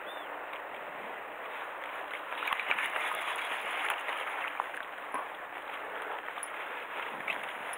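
Steady outdoor noise of sea water washing against a concrete harbour wall, with wind, and a few faint clicks.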